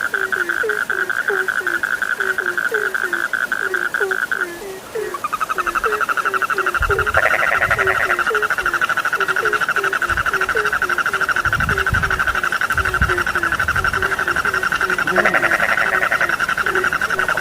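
Frog chorus: a continuous rapid pulsing trill that breaks off briefly about five seconds in, over a steady run of short low croaks, about two or three a second. A few low thuds sound in the second half.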